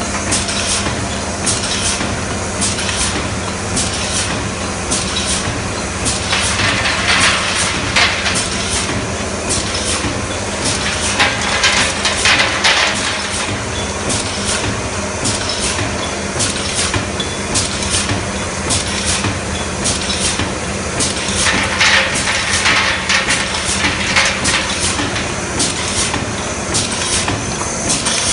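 Automatic aerosol valve feeder and inserter machine running: a steady low machine hum with a regular run of sharp clicks and knocks as valves are fed and placed, and a few longer bursts of air hiss.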